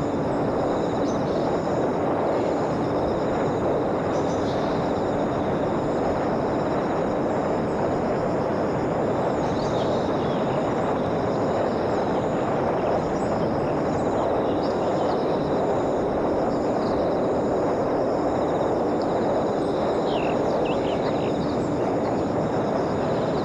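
Small electric RC airplane in flight, its brushless motor and 5-inch propeller running steadily under a constant rushing noise. A few faint high chirps come about ten and twenty seconds in.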